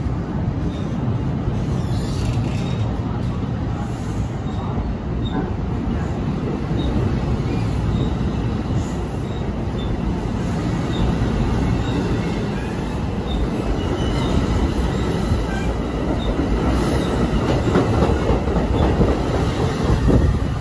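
NJ Transit MultiLevel double-deck passenger coaches rolling past close by: a steady rumble of wheels on rail, growing a little louder near the end, with a few faint, short high squeaks.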